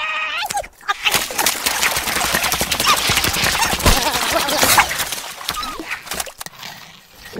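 A cartoon squirrel's short squeaky cry, then a long run of rapid ice cracking and splintering as the ice breaks up under him, thinning out near the end.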